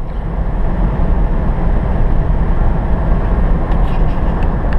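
Steady road and engine rumble heard inside a vehicle's cab while driving at highway speed.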